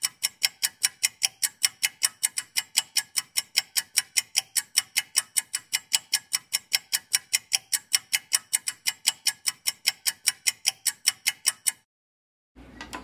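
Clock-ticking sound effect: sharp, even, high ticks about four a second that stop abruptly near the end.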